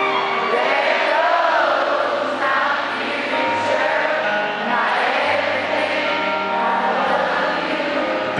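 A live country ballad heard from within an arena crowd: the band plays steady, sustained chords while many voices sing the melody together.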